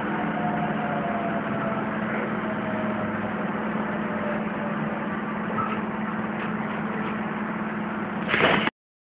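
Keisei 3700-series electric train running, heard from inside the driver's cab: steady rolling noise with a constant low hum. A brief louder burst comes near the end, then the sound cuts off abruptly.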